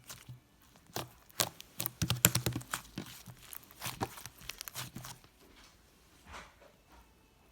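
Stiff white slime being squeezed and stretched by hand, giving a dense run of clicks, crackles and small pops from about a second in until about five seconds, then softer handling.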